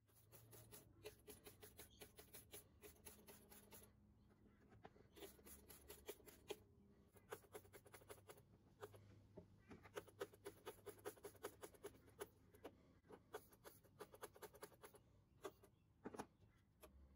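Trigger spray bottle pumped over and over, squirting cleaner onto a rusty hand-drill frame: quick clicking squirts several a second, in runs with short pauses.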